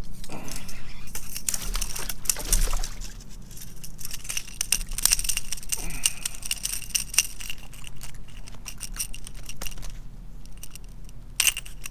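Fishing rod and reel being handled and cranked: a run of sharp metallic clicks and rattles, with a thin high whine over the middle stretch.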